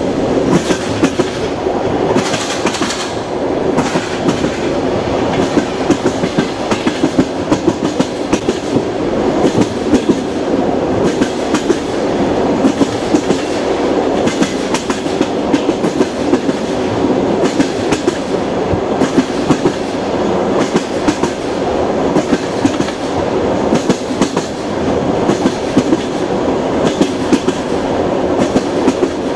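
Passenger train rolling along: a steady rumble with the clickety-clack of the wheels knocking over the rail joints, many sharp knocks coming in quick irregular runs.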